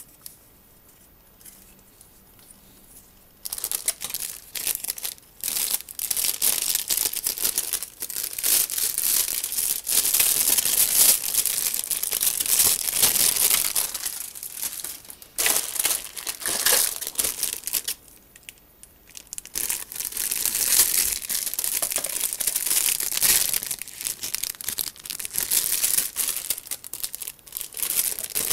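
Clear plastic kit bag crinkling as hands handle the plastic model sprues inside it. It starts after about three and a half quiet seconds and goes on in bursts, with a short break about two-thirds of the way through.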